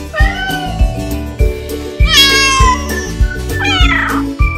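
Domestic cat meowing three times, the middle call the loudest and highest, over background music with a steady beat.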